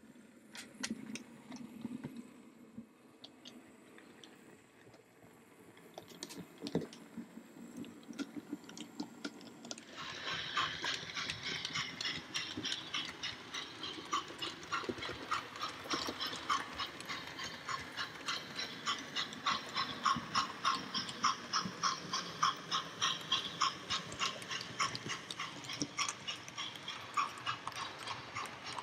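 OO gauge model steam train running on the layout track: a few scattered clicks at first, then from about ten seconds in a quick, even clicking, about three a second.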